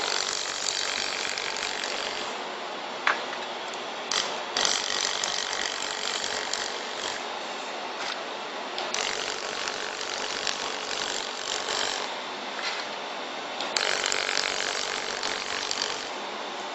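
Laser welder firing in about four passes, each a crackling sizzle lasting two to three seconds, over a steady machine hiss.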